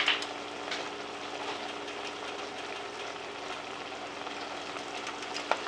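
Pots simmering and bubbling on an electric stove, a steady noise with a low hum underneath, and a light click at the start and another near the end.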